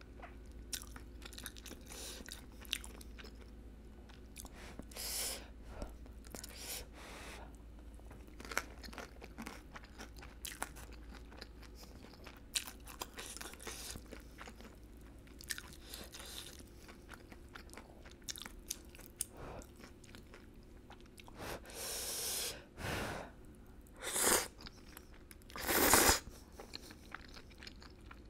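Close-miked chewing and biting of spicy rice cakes, noodles and fried tempura, with many small wet mouth clicks. A few longer, louder noisy bursts come in the second half, the loudest near the end, as noodles are taken in.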